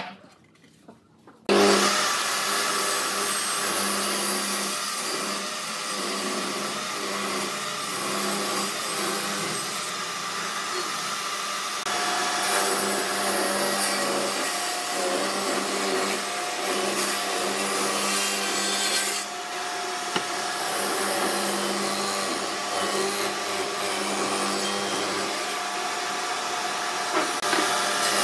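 Benchtop table saw running and ripping a pine board lengthwise along the fence: a steady motor whine under the blade's cutting noise. It starts abruptly about a second and a half in.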